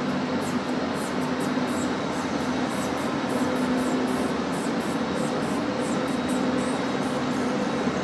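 A match scraped again and again across a small match striker glued onto a stainless steel multi-tool, in quick strokes about three times a second, with a steady hum beneath.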